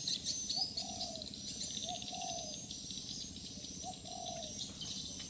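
A dove cooing: a short low note followed by a longer one, repeated four times about every two seconds, with small birds chirping higher up.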